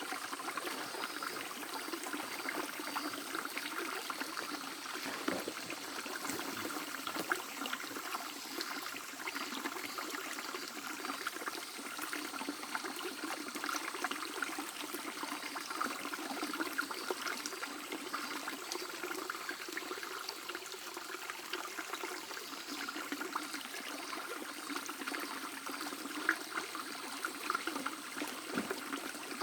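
Shallow stream babbling over stones: a steady trickling and gurgling of running water, with many small splashes and no break.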